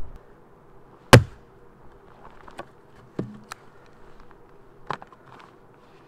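Hatchet chopping a small log on the ground: one sharp, hard chop about a second in, then a few lighter knocks and taps of wood.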